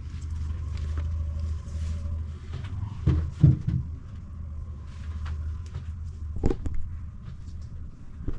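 Low steady rumble with a few sharp knocks, the loudest pair about three seconds in and another past six seconds.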